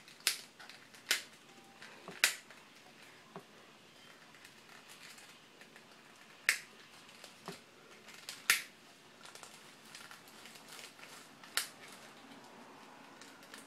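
Sharp plastic clicks from a flip phone's casing as fingers pry at the back cover to get the battery out: about six loud clicks spread unevenly, with fainter ticks between.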